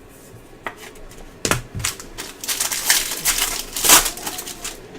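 Trading cards and their plastic packaging being handled: a few sharp clicks, then a dense crinkling rustle from about two and a half seconds in, loudest near four seconds.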